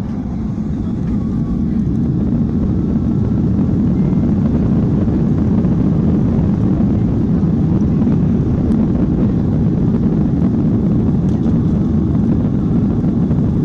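Boeing 737-900ER's CFM56-7B turbofan engines at takeoff power, heard from inside the cabin as a loud, steady low roar during the takeoff roll. It cuts in suddenly, swells over the first couple of seconds, then holds steady.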